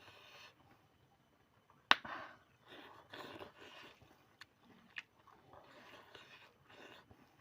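A person chewing food close to the microphone, with a sharp click about two seconds in and a few smaller clicks later.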